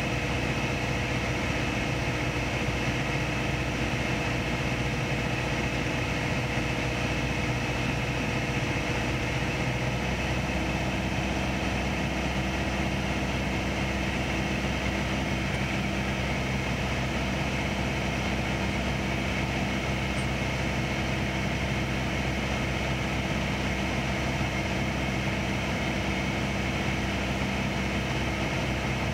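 Piper PA-28 Archer's four-cylinder piston engine and propeller droning steadily in descending cruise flight. The pitch of the drone shifts slightly about ten seconds in.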